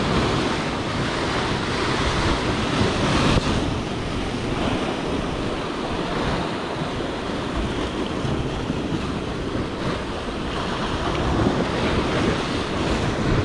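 Sea waves washing steadily against shore rocks, with wind buffeting the microphone.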